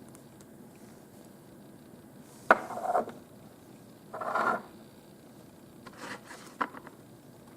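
Handling noises from a watch and its leather strap: a sharp click about two and a half seconds in with a short scrape after it, another brief rubbing scrape a little later, and a few lighter clicks near the end.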